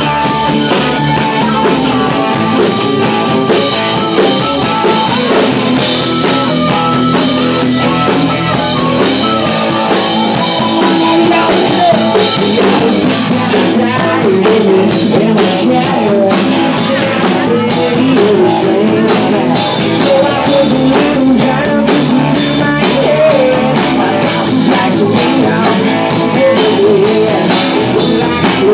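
Live rock band playing loud: electric guitar, drum kit and bass, with a sung lead line over it.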